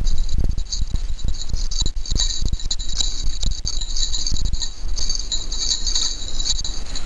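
A small bell on a Maltese puppy's collar jingles steadily as the puppy moves about. Irregular low bumps and rustles sound close to the microphone.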